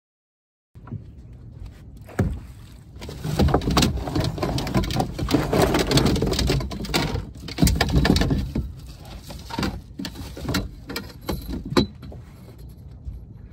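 Silent for the first second, then wind buffeting the microphone on a small boat, loudest in the middle, with scattered sharp knocks and thumps.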